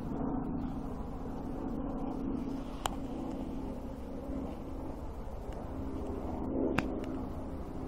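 Steady low background rumble, with two sharp clicks: one about three seconds in and one near the end.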